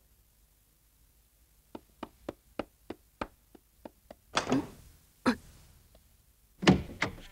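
Cartoon footsteps tapping quickly down wooden stairs, about three or four light taps a second, followed by a few heavier wooden thuds, the loudest a pair near the end.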